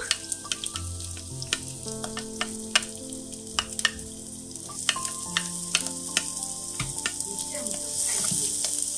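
Chopped garlic and shallots sizzling in hot oil in a wok, with a wooden spatula giving many short clicks and scrapes against the pan as they are stirred.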